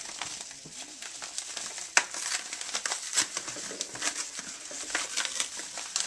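Yellow padded bubble mailer being handled and pulled open by hand: crinkling and crackling of its paper, with one sharp click about two seconds in.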